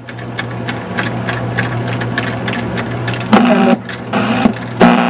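The Zenith System 3's remote-driven tuning motor running and turning the channel selector, a steady hum with a quick run of clicks as it steps through the channel positions. Short bursts of TV sound come through near the end as it passes and lands on channels.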